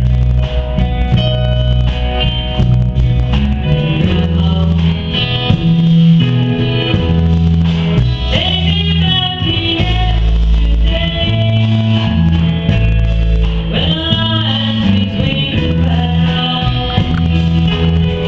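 Live band playing a slow song, electric guitar over deep sustained bass notes, with a woman singing lead through a microphone in stretches.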